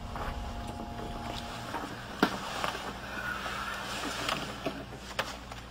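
Low steady background rumble with a faint hiss, a few held tones in the first second and a half, and a couple of soft clicks.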